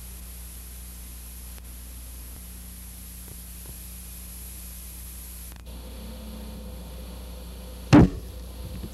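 Steady hiss and low hum, then near the end a single loud knock as two plastic toy trucks collide, followed by a couple of softer knocks.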